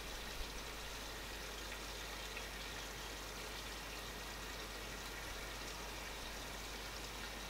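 Faint steady hiss of coconut cream simmering in a cast iron camp oven on a wood-fired stove, with a light click about half a second in.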